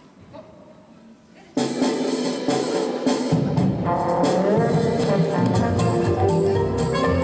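Low room sound, then music starts abruptly about a second and a half in with sharp percussive hits. A heavy drum beat and bass join about three seconds in.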